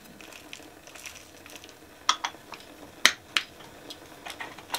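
Dried chicory root chunks being crushed in a small metal hand grinder as it is twisted. The sound is a run of scattered crunches and clicks, three of them sharper and louder around the middle.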